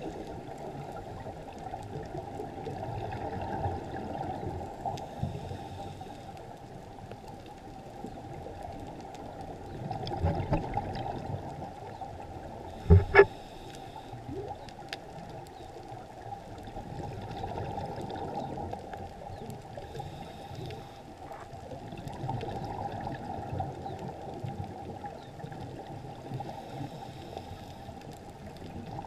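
A scuba diver's regulator breathing and exhaled bubbles heard muffled through an underwater camera housing, swelling in waves every few seconds. Two sharp knocks come about thirteen seconds in.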